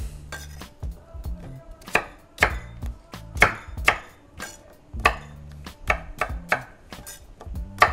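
Kitchen knife dicing sweet potato on a wooden cutting board: irregular knocks of the blade through the flesh onto the board, about two a second.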